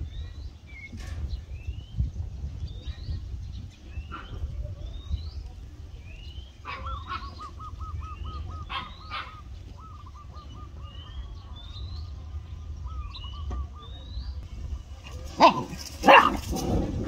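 A dog barks about three times near the end, the loudest sounds here. Before that, birds chirp with short repeated rising calls and a fast pulsing trill, over a steady low rumble.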